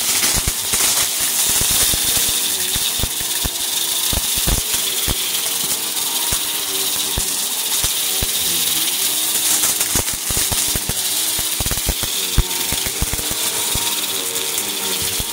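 A bagless upright vacuum cleaner runs on carpet, its motor hum wavering in pitch as it is pushed back and forth. A constant crackle of sharp clicks comes from debris being sucked up through the nozzle and rattling into the canister.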